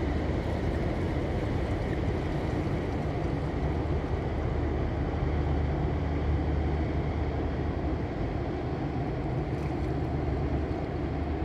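Steady low rumble of a passing cargo ship's engines, with an even hiss over it.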